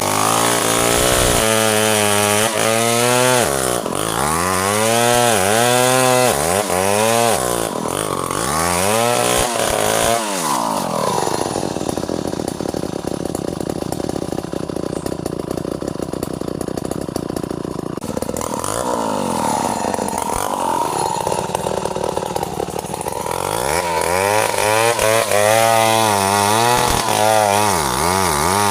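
Two-stroke chainsaw running while cutting ironwood, its engine pitch rising and falling again and again. For several seconds in the middle it holds a steadier, duller drone, then the rising and falling resumes.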